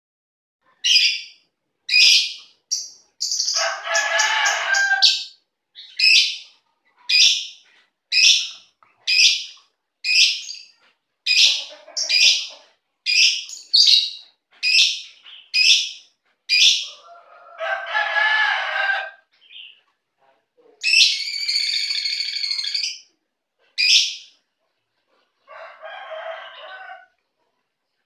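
A pair of lovebirds calling: sharp, high chirps about once a second, broken by several longer bouts of chatter, each a second or two long.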